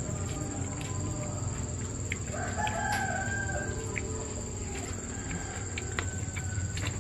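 A rooster crowing once, starting about two seconds in and lasting under two seconds, among scattered soft clicks and taps from eating by hand off a plate.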